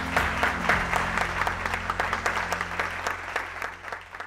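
Studio audience applauding, a dense patter of clapping that thins and fades out near the end.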